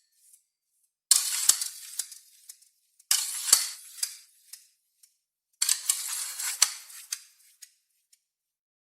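A sword drawn from its scabbard three times, about two seconds apart. Each draw is a sudden, high metallic scrape lasting about a second, with a sharp click inside it.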